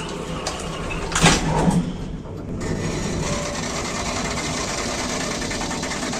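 Elevator motor running with a steady mechanical hum and hiss. A louder, rougher burst comes about a second in, and the sound settles into an even run from about two and a half seconds.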